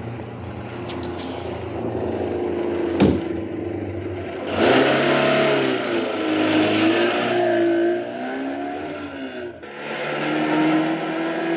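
Several car engines idling at a traffic light, with a sharp knock about three seconds in, then the engines revving loudly with wavering pitch from about four and a half seconds. After a brief drop, a single car engine runs at a steadier pitch as the car drives along.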